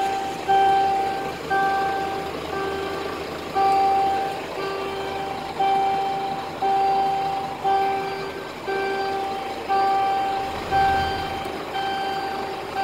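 A refuse truck's electronic warning beeper sounding in a steady run of repeated beeps, about one a second, each lasting most of a second.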